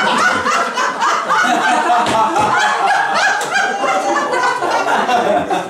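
A small group of people laughing loudly together, several voices overlapping.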